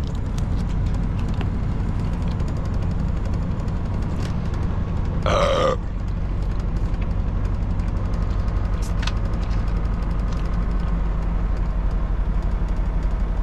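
Semi-truck's diesel engine running, a steady low drone heard inside the cab. A single short burp comes about five seconds in.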